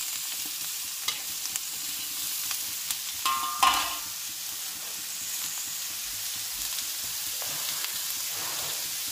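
Beef and vegetables sizzling steadily in a hot wok while a metal spatula stirs them. A few sharp clicks of the spatula on the pan, with one louder ringing clatter a little under four seconds in.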